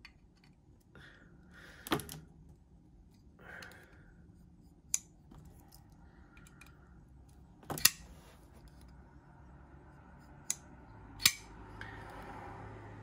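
Sharp metal clicks and faint scraping from a Cheburkov Small Strizh folding knife being reassembled: a small driver turning the pivot screw, then the blade swung on its steel ball bearings. About six separate clicks, spread out, with a soft rubbing near the end.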